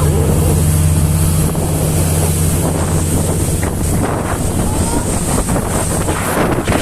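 Motorboat engine running steadily with wind buffeting the microphone and water rushing past the hull. The engine's low hum weakens about four seconds in, leaving mostly wind and water noise.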